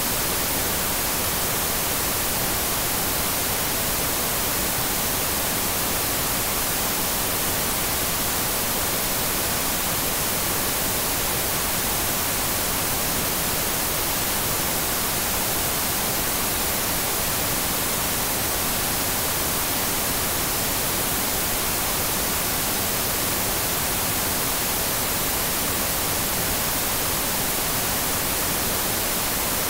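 TV static: a steady, even hiss that stays the same throughout, strongest in the high treble.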